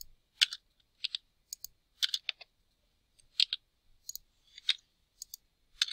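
Computer keyboard keys and mouse clicks: a sparse, irregular series of short clicks, some in quick pairs, while spreadsheet formulas are typed in.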